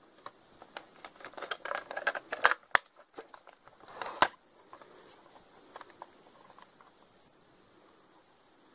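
Handling noise: a quick run of small clicks and taps, then one sharp knock about four seconds in, with faint hiss between.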